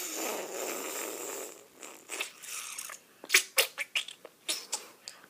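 A person makes a breathy whooshing noise with their mouth for about a second and a half. From about three seconds in comes a quick run of sharp taps on the iPad's glass screen.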